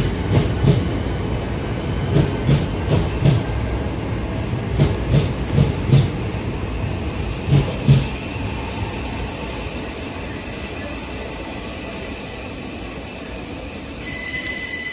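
Train passing through the station, its wheels clicking over rail joints and points in quick pairs for about eight seconds. The clicking then gives way to a steadier rumble with a high hiss.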